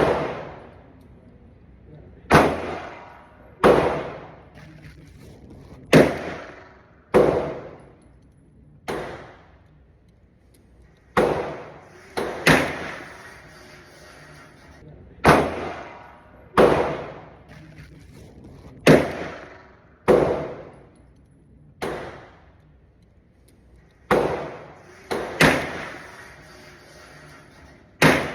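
Pistol shots, fired singly at an uneven pace of about one every one to two seconds, about fifteen in all. Each crack trails off in an echoing decay.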